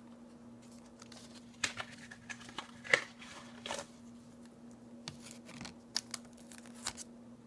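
Foil Pokémon booster pack wrapper crinkling as it is handled and set on a gram scale, with scattered light clicks and rustles, the loudest about three seconds in.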